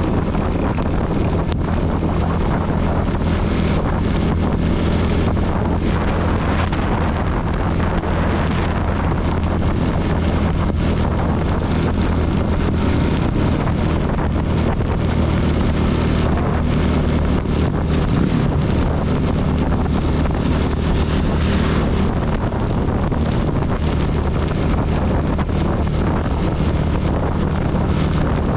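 CB 250 motorcycle engine running steadily while riding, mixed with a loud, even rush of wind on the microphone and heavy rain.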